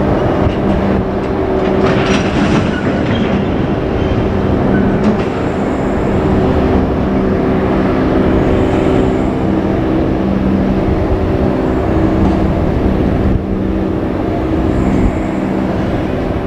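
JR Freight electric-locomotive-hauled train passing close by, its wheels rolling over the rails in a continuous loud rumble with a steady hum.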